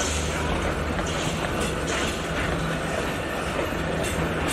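Narrow-gauge heritage train carriages rolling past on the track: a steady rumble of wheels on rail, with light clicks as the wheels run over rail joints.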